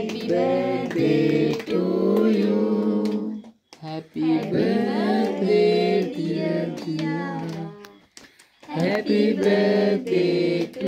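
A group of voices, women and children among them, singing a birthday song together in sung phrases, with short breaks about three and a half and eight seconds in.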